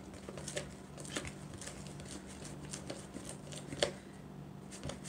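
A plastic measuring spoon stirring sticky glitter glue in a plastic mixing bowl: irregular light scrapes and clicks against the bowl, one sharper click about four seconds in. The saline solution is starting to thicken the glue into slime.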